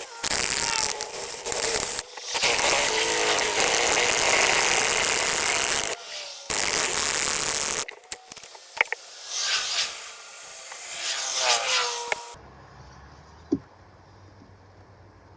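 Power drill running in three long bursts, then shorter ones, as a drill bit cuts out the stripped spark plug hole in a Ford Triton V10's aluminium cylinder head. About twelve seconds in it stops abruptly, leaving a low hum.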